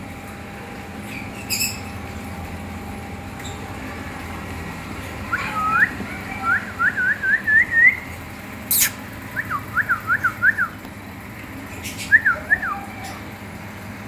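Short, clean whistled notes, each sliding up in pitch, in three quick runs: the first about a third of the way in, its notes climbing steadily higher, a shorter run a few seconds later, and a few notes near the end. A single sharp click falls between the first and second runs.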